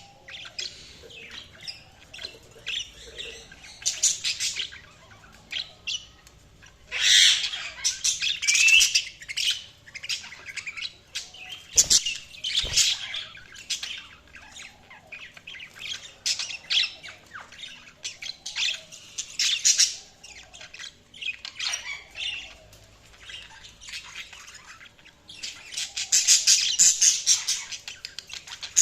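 Budgerigars chirping and squawking in quick runs of short, high-pitched calls, loudest a quarter of the way in and again near the end.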